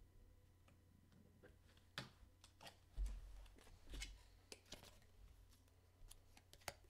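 Near silence broken by faint clicks and light rustles of trading cards and plastic card holders being handled, with two soft thumps about three and four seconds in.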